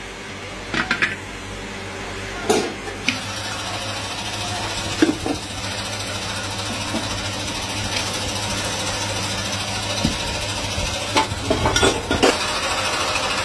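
Scattered metal clanks and knocks as a sand-casting mould is opened and the freshly cast pan is handled with iron tools, with a cluster of knocks near the end. A steady mechanical hum runs underneath, slowly growing louder.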